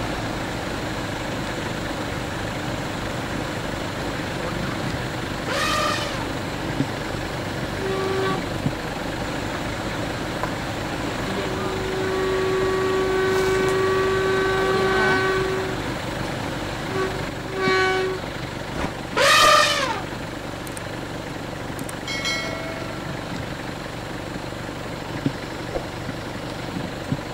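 A vehicle running, with several horn blasts; one blast is held for about four seconds around the middle. Voices are heard now and then, and two loud rising cries come at about a fifth and two-thirds of the way through, the second the loudest.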